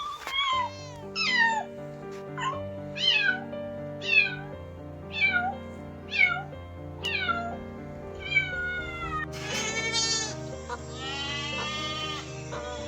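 A cat meowing over and over, short meows that fall in pitch, about one a second, over background music. From about nine seconds in, the meows give way to a longer, wavering animal call.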